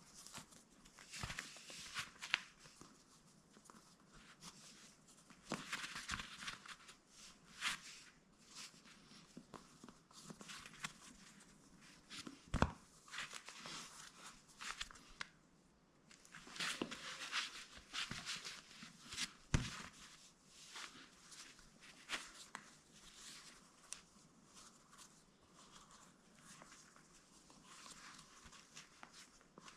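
Faint rustling and scattered light knocks from hands working a sandal and its laces, as a lace knot is tied and pulled tight.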